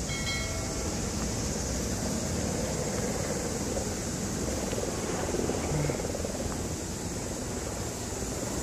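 Wind rumbling and buffeting on a handheld camera's microphone while walking, over a steady high hiss.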